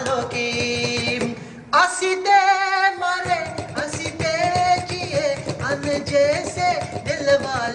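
A song: a voice singing held, wavering notes with vibrato over a rhythmic instrumental accompaniment, with a short break in the singing about two seconds in.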